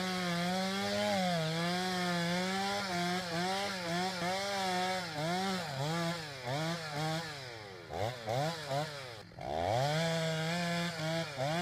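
Chainsaw engine cutting into a tree trunk, its pitch dipping again and again as it bogs under load in the cut. About eight seconds in it falls toward idle with a few short blips, then revs back up to full speed.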